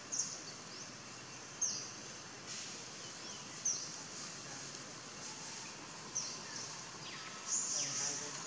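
Outdoor natural ambience: short, high, falling chirps, likely from birds, sound about five times, the loudest cluster near the end, over a steady high hiss.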